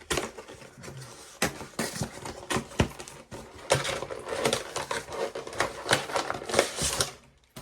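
Cardboard collection box being forced open by hand: irregular crackling and scraping of cardboard and packaging with many sharp clicks, hardest near the end.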